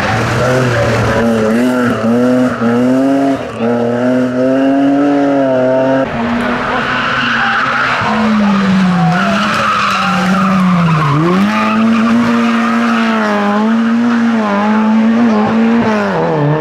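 Rally cars at full throttle on a tarmac stage, one after the other. First a BMW E30 3 Series slides through a bend with its tyres squealing. After a cut about six seconds in, a classic Lada revs hard, its engine note rising, then dropping sharply at each gear change or lift, near nine, eleven and sixteen seconds in.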